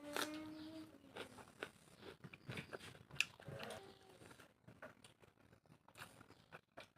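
Close-up sounds of pork being chewed and bitten, quiet, with irregular wet clicks and crunches.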